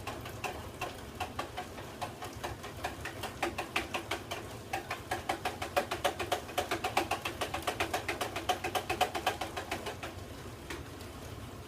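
Spoon stirring the iced tea, clinking rapidly against the side of its container at about four or five clinks a second, louder in the middle, to dissolve the added stevia sweetener; the stirring stops about ten seconds in.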